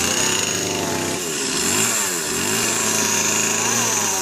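Two-stroke chainsaw engine running and revving up and down several times.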